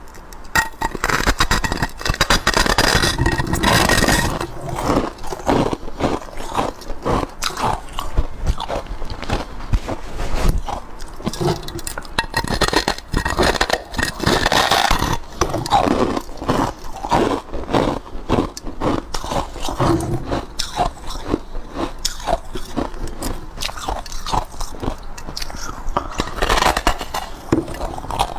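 A person biting and chewing a large block of white ice: many crisp crunches and scrapes in quick, irregular succession as mouthfuls are broken off.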